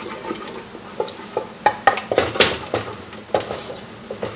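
A wooden spoon stirring tomato paste in a metal pot, with a string of irregular sharp knocks and scrapes of the utensil against the pot.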